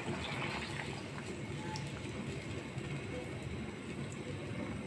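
Water poured from a bowl into a pan of hilsa in yogurt gravy, tailing off within the first second, then the thinned gravy simmering over a steady low hum.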